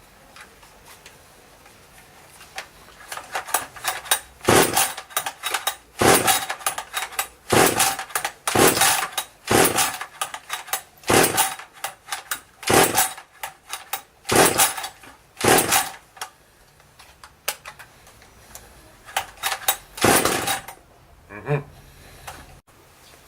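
Husqvarna T540 XP two-stroke top-handle chainsaw being pull-started: about a dozen short, rasping pulls of the recoil starter cord in quick succession, then one more after a pause. The engine does not catch into a steady run on this hard first start.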